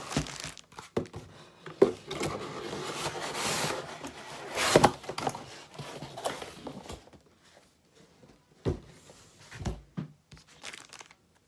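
Plastic packaging crinkling and a cardboard box rustling as the laptop's charger is pulled out, loudest about five seconds in. A few short knocks and thumps follow as it quiets down.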